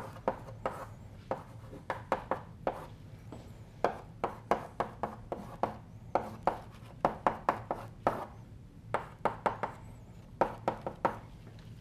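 Chalk writing on a blackboard: a busy, uneven run of sharp taps and short scrapes as symbols are written, over a low steady room hum.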